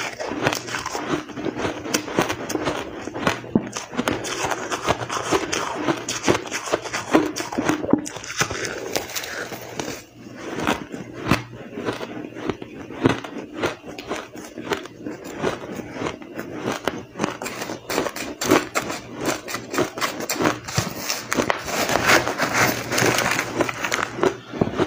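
Close-up crunching and chewing of powdery blender-crushed ice, a dense run of crisp crackles and crunches with a brief pause about ten seconds in.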